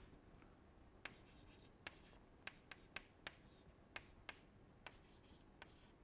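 Chalk writing on a chalkboard: a string of about ten short, faint taps and scrapes at irregular intervals as the strokes of letters and symbols are made.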